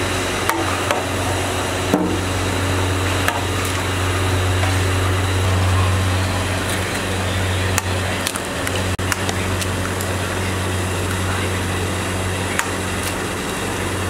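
Sliced onions sizzling in a large iron kadai over a steady low hum, with a metal spatula scraping and knocking against the pan in scattered sharp clicks as they are stirred.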